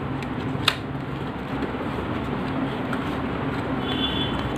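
Paperboard retail box being opened by hand, with a sharp snap of the card flap about a second in. A steady low background hum runs underneath.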